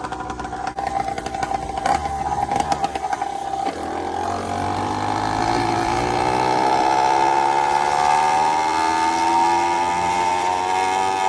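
Minarelli two-stroke engine on a motorized bicycle running under way on a Mikuni VM20 carburettor jetted down to a 135 main jet. Its pitch climbs steadily from about four seconds in as it accelerates.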